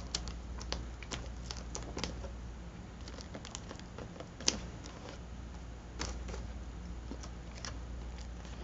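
Scattered soft taps, clicks and paper rustling from hands pressing and smoothing glued magazine cutouts onto a spiral-bound journal page, with one sharper click about four and a half seconds in. A low steady hum runs underneath.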